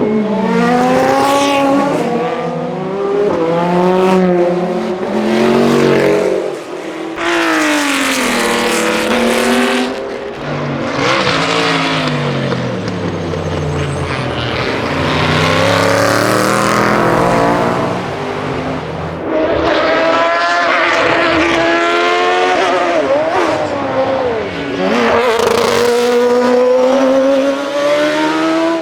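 Historic racing car engines at full throttle, one car after another. The engine pitch climbs through the gears in steps, then drops as cars pass or brake, with short breaks in the sound between cars.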